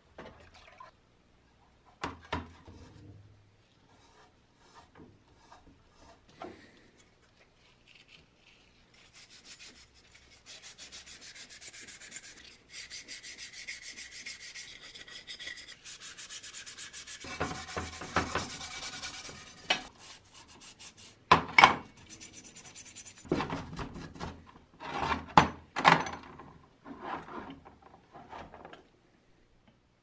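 A brush scrubbing a greasy, rust-remover-soaked metal part of an old coffee grinder in fast, rasping strokes, getting louder and more separate in the second half. For the first several seconds there are only scattered knocks and clinks as parts are handled.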